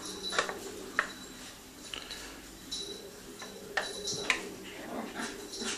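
Spatula scraping and tapping against the inside of a mixing bowl as mascarpone cream is scraped out onto the dessert, giving scattered light clicks and knocks.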